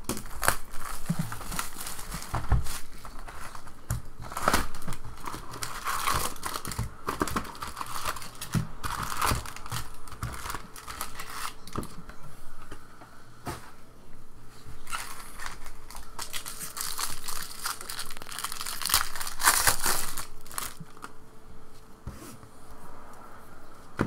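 Trading-card pack wrappers crinkling and tearing as a box of card packs is opened and a pack is ripped open, with irregular rustles and scrapes of handling.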